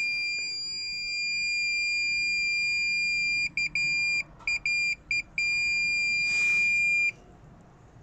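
Fluke 233 multimeter's continuity beeper sounding a steady high beep that cuts in and out several times about halfway through as the glow plug feed cable is moved, then stops about seven seconds in. The dropouts show an intermittent connection in the glow plug feed, which the owner suspects is at the wire's crimp.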